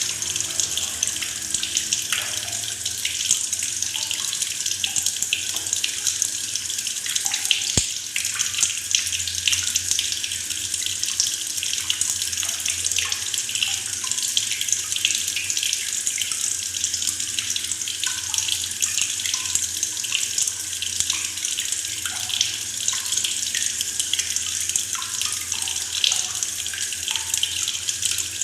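Tap water pouring steadily into a plastic bucket, a continuous rush with small bubbling gurgles throughout. A single sharp click sounds about eight seconds in.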